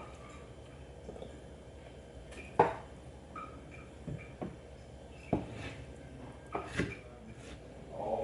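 Kitchen dishes and utensils being handled: about seven scattered knocks and clinks at irregular intervals, the loudest about two and a half seconds in.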